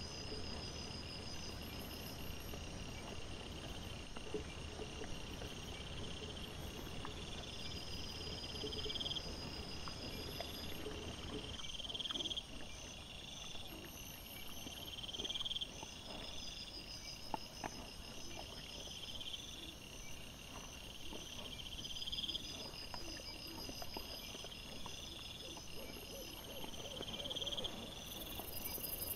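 Night insects chirping: a steady high trill with a rising chirp repeated about every two seconds, and faint scattered clicks and rustles of wild boar foraging on the ground. A low hum is heard for about the first twelve seconds and cuts off suddenly.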